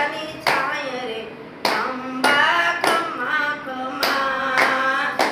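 Group of women singing a devotional song together, keeping time with hand claps about once a second.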